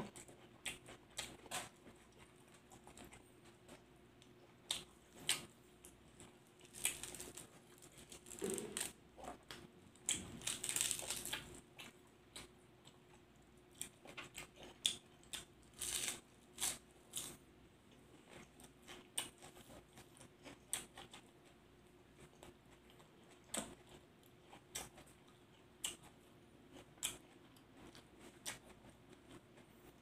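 Close-up eating sounds: irregular chewing, crunching and wet mouth clicks as a person eats pork larb with raw fresh vegetables and sticky rice by hand, with a few longer stretches of chewing.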